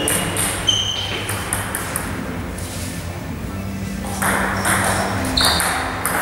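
Table tennis ball clicking off the table and bats, a few scattered hits at first and a quicker run of hits in the last two seconds as a serve and rally start. Short high pings ring out among them.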